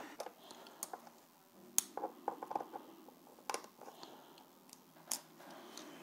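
Small screwdriver turning screws out of a laptop's plastic bottom case: faint scratching with a few sharp clicks, about one every second or two.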